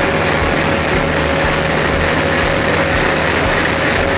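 Indian diesel locomotive engine running steadily, a continuous low rumble with one steady high tone held over it, heard close up as the locomotive moves slowly in to couple.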